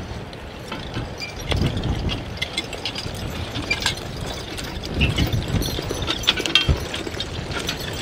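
Horse-drawn spring-tooth harrow working plowed ground: irregular metallic clinking and rattling from the harrow and harness, with the draft horses' hooves thudding now and then.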